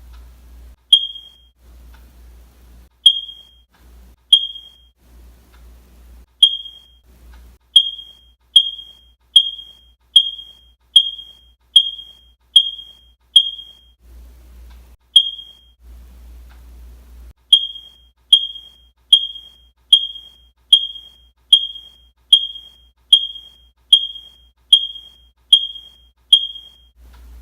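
Smoke alarm sounding short, shrill, single-pitched beeps. They start at irregular intervals, then run about every 0.8 s with a couple of brief pauses past the middle.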